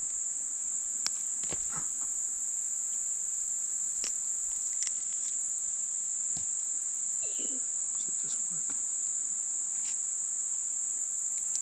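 Steady high-pitched chorus of insects, running without a break, with a few faint clicks and taps scattered through it.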